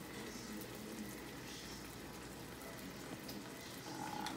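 Chicken stock bubbling and sizzling around browned chicken pieces in a hot wok, a steady hiss.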